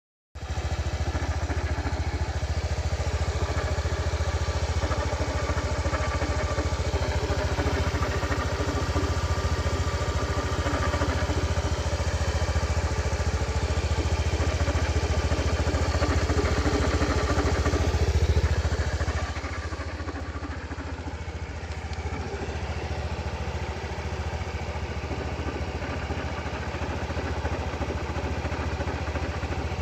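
Honda Dio110 scooter's small single-cylinder four-stroke engine idling steadily, dropping a little in level about two-thirds of the way through. The owner reports an occasional clattering knock ('katan-katan') at idle whose cause is unknown.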